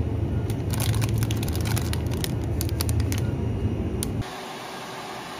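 Steady low hum of a convenience store, with crinkles and clicks of plastic-wrapped snack packets being handled. About four seconds in it cuts off abruptly to a quieter steady hiss.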